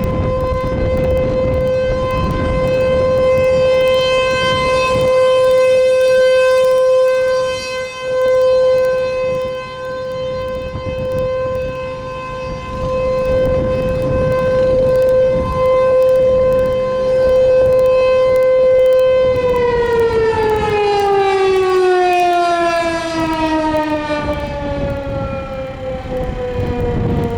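ASC T-128 outdoor warning siren sounding a steady alert tone, loud, its level swelling and dipping. About two-thirds of the way through it begins to wind down, its pitch falling steadily as the rotor slows.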